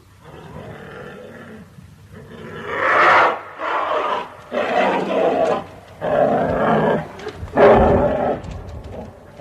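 Bear growling low, then roaring loudly five times in quick succession, each roar under a second long.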